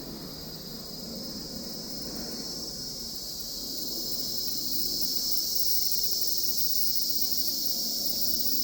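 Cicadas singing: a steady, high, electric-sounding buzz that swells louder about halfway through.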